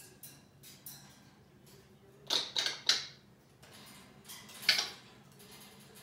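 African grey parrot in its metal cage making short, sharp sounds: three in quick succession about two seconds in and one louder one near the end.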